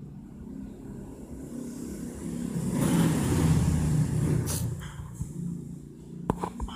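A motor vehicle passing, heard as a low rumble that swells to its loudest about three to four seconds in and then fades.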